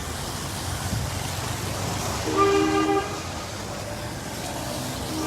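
A vehicle horn sounds once, a flat two-note blare lasting under a second about two seconds in, over steady street background noise; another horn starts right at the end.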